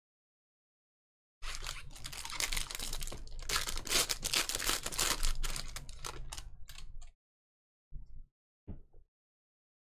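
Trading cards and their pack wrapper being handled: dense rustling and clicking for about six seconds, starting a second and a half in, then two short rustles near the end.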